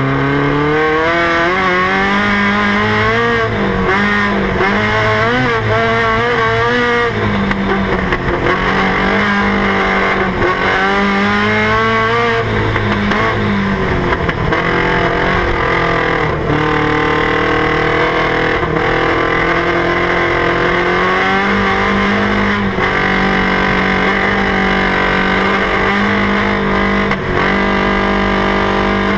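Race car's engine heard from inside the cockpit, driven hard on a dirt circuit: the revs climb and fall again and again in the first half, then hold steadier later on.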